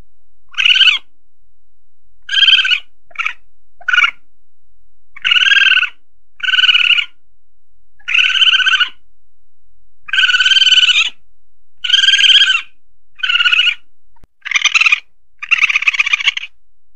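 Asian palm civet calls played as a hunting lure: about a dozen short, shrill calls at irregular intervals, some brief and others about a second long.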